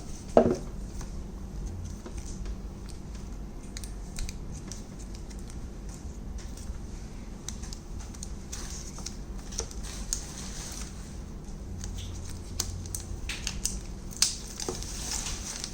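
Handling noises from unpacking a smartwatch: rustling plastic wrapping and scattered light clicks. The sharpest clicks come about half a second in and again near the end.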